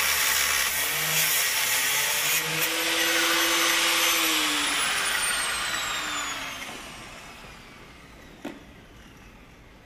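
Angle grinder cutting steel on a muck spreader's flail rotor, throwing sparks. About two and a half seconds in the cutting stops, and the disc winds down with a slowly falling whine that fades over several seconds. A single knock near the end as the grinder is set down.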